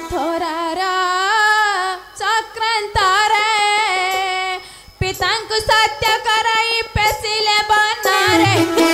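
A girl's high voice singing a slow, ornamented Ramalila song line, the pitch wavering and gliding, almost unaccompanied. Phrases break off briefly about two seconds in and again just before five seconds, with a few soft taps in between.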